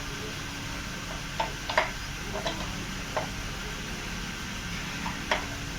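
Hand tools clinking on metal during manual tightening on a car's steering parts: about five scattered sharp taps, the loudest near two seconds in and another near the end, over a steady background hiss.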